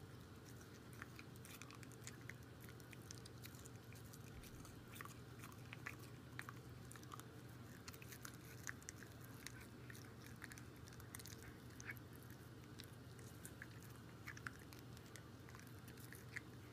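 Faint, irregular clicks and crunches of a Shiba Inu biting and chewing on a plastic toothbrush while its teeth are brushed, over a steady low hum.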